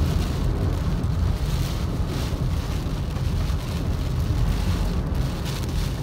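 Steady low rumble of a car driving on a wet road, heard from inside the cabin, with heavy rain hitting the roof and windshield.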